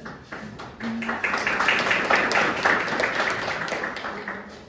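A roomful of people applauding, swelling about a second in and dying away near the end.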